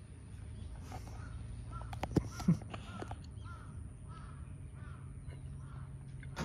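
Crows cawing repeatedly in a run of short calls, over a steady low hum, with two short knocks a little over two seconds in.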